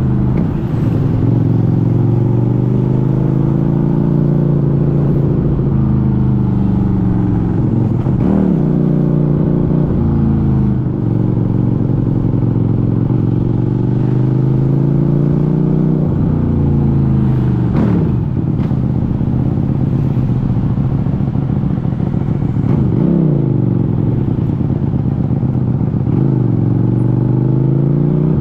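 QJMotor SRV400 V-twin motorcycle engine running under way, its pitch rising as it accelerates and falling as it eases off, several times over.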